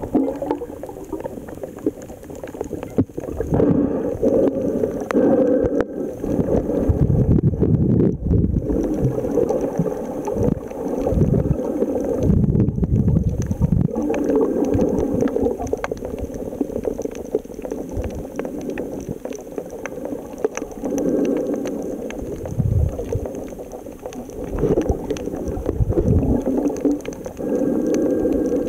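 Muffled underwater gurgling and sloshing of water around a submerged camera during snorkeling, coming in irregular swells, with a faint steady high tone.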